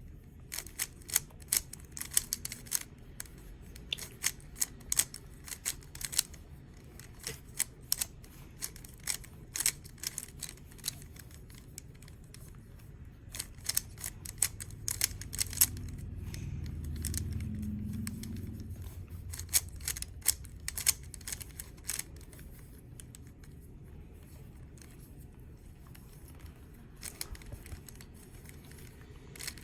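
Plastic 3x3 Rubik's cube being turned over and over, its layers clicking in quick irregular runs as an algorithm is repeated. A low dull rumble swells and fades midway.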